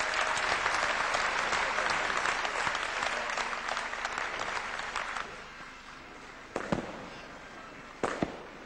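Audience applause that fades out after about five seconds, followed by two sharp firework bangs, one past the middle and one near the end.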